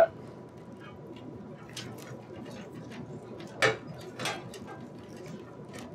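Light clicks and rustling of front-panel cables and small plastic connectors being sorted by hand against a PC case, with two sharper clicks a little past the middle.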